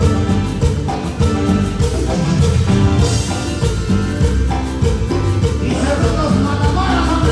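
Live band playing dance music with a steady drum beat, the electric bass guitar loud and prominent over the drum kit and keyboards.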